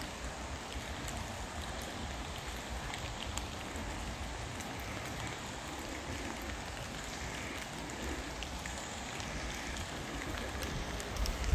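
Steady outdoor hiss with a low rumble underneath and a few faint, scattered ticks.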